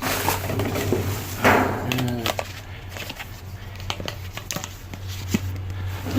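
Rummaging through dumpster trash: rustling with irregular clicks and clatters as small connector pieces are picked up and gathered.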